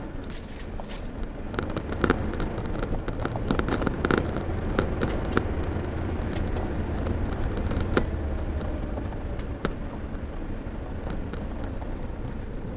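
Car driving on a rough dirt track, heard from inside the cabin: a steady low engine and road rumble with irregular sharp knocks and rattles as the car jolts over bumps, the loudest about two, four and eight seconds in.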